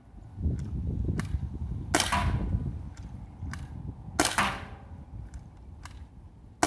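JT ER2 pump-action paintball gun firing on CO2: three sharp shots about two seconds apart, the last right at the end, with lighter clicks between them as the pump is cocked for each shot.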